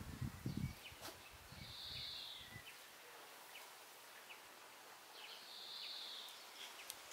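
Quiet garden ambience. A short, high hissing call repeats twice, about four seconds apart, over soft low rumbles that stop after about two and a half seconds and a few faint light ticks.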